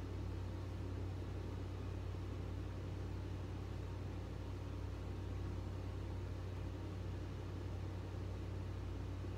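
Steady low hum with an even hiss behind it, unchanging throughout, with no distinct strokes or knocks.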